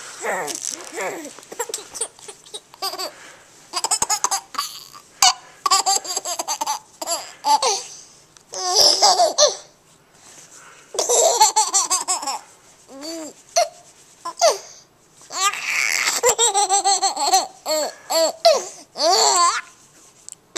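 Baby laughing in repeated bursts, with babbling, set off by an adult's silly vocal noises and hisses between the laughs.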